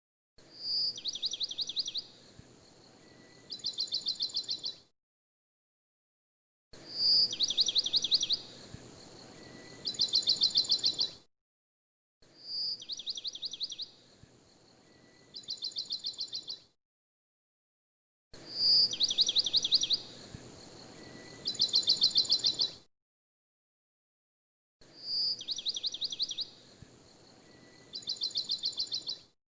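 A short recorded birdsong clip looped about every six seconds, five times, with dead silence between repeats. Each pass is a clear high note, then a fast chirping trill, a brief pause and a second, faster trill.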